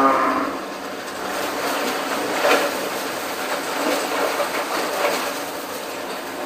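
A cow's moo trails off in the first half second. Then come a few clanks and knocks as the cow steps off the weighing scale's platform and out of its steel pen; the loudest knock comes about two and a half seconds in, with lighter ones near four and five seconds.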